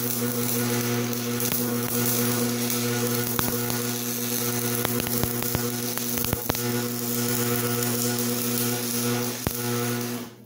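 Electric arc welding: the welding machine gives a steady electrical hum under the crackling, sputtering hiss of the arc, with sharp pops here and there. The arc breaks off and the hum stops just before the end.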